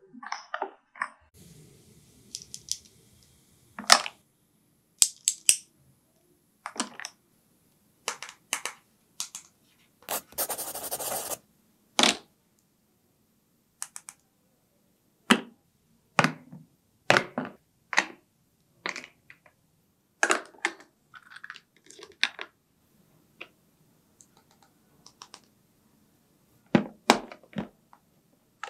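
Hard plastic toy doctor-kit pieces clicking, knocking and tapping as they are handled, set down and snapped into the case, a few seconds apart. About ten seconds in there is a noisy scraping burst lasting about a second and a half.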